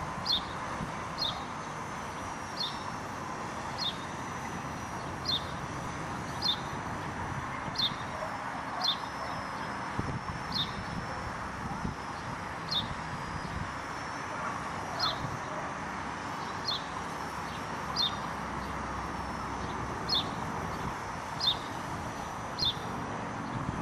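A bird chirping over and over, short falling chirps about once a second. Under it is a steady high whine that wavers slightly, from the micro helicopter's electric motor, with wind noise.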